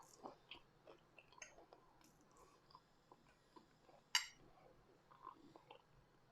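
Quiet chewing of fries close to the microphone: faint scattered mouth clicks and crackles, with one sharper click about four seconds in.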